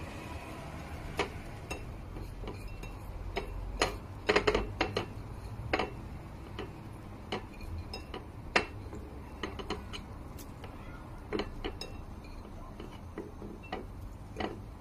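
Metal spoon knocking and scraping against a stainless steel mixing bowl while tossing minced pork and herbs, in irregular clinks with a busy run about four seconds in and one sharp knock near the middle.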